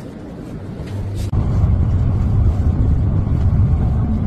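Low, steady rumble of a tram running, stepping up abruptly to a louder level about a second in.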